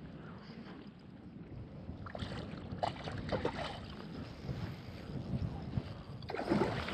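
Wind rumbling on the microphone over small waves lapping at the lake's edge, with a few short splashy noises about two to three seconds in.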